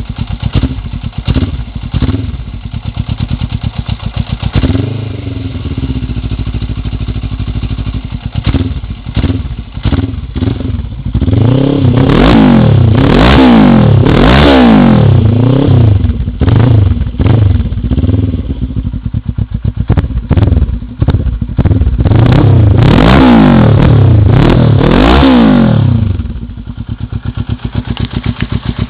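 Suzuki GS500E parallel-twin engine breathing through an open race silencer, idling, then revved up and down in two runs of repeated throttle blips before settling back to idle near the end.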